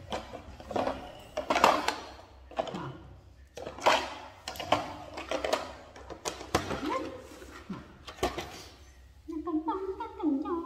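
Clicks and knocks of a plastic jar and its screw lid being handled and opened. Near the end a woman hums a tune.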